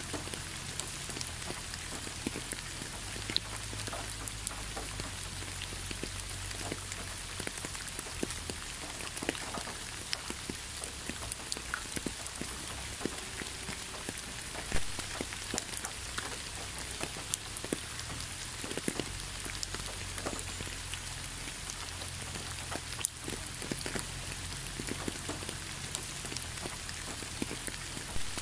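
Steady rain falling on leaves and the ground: a continuous hiss scattered with many small drop ticks, a few louder single drips standing out.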